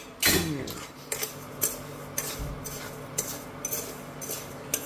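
Metal pans, lids and spoons being handled in the kitchen: a loud clatter about a quarter second in, then a string of sharp clinks and knocks about twice a second.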